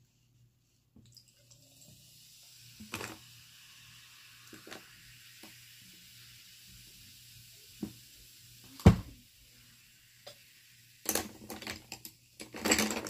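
Sparkling water fizzing as it is poured over ice, a steady hiss that fades after about ten seconds. Scattered knocks are heard, with one loud thump about nine seconds in, then a clatter of glass and ice near the end.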